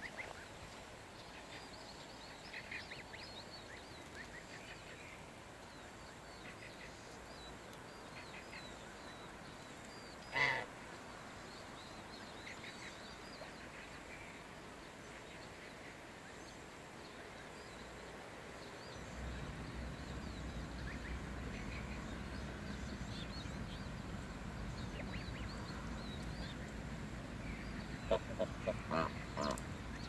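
Domestic geese honking: one loud honk about a third of the way in, then a quick run of four or five honks near the end, with faint high peeping scattered throughout.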